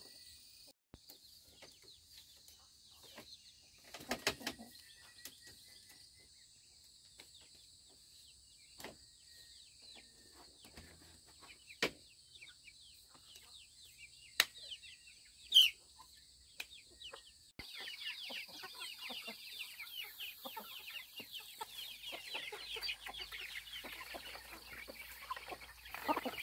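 Scattered short bird chirps with a few sharp clicks, then, from about two-thirds of the way through, a flock of hens and chicks cheeping and clucking busily.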